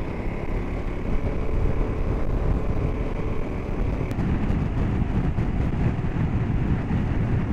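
KTM motorcycle running at steady cruising speed, its engine noise mixed with road and wind noise, heard from a camera mounted on the bike. A faint steady whine in the first half stops about four seconds in.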